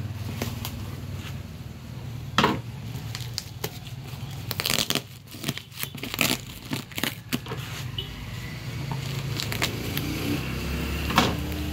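Unpacking noise: black plastic packing wrapped around a cardboard box crinkling and tearing under the hands, with irregular sharp clicks and crackles, a dense cluster of them about halfway through, over a steady low hum.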